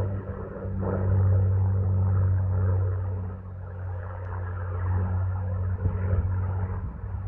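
Spitfire's piston aero engine droning in the distance, a low steady hum that swells about a second in and eases off again.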